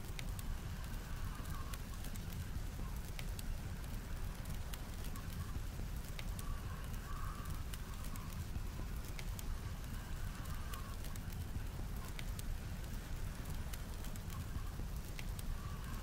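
Wood fire crackling with scattered sharp pops over a steady low rumble of blizzard wind.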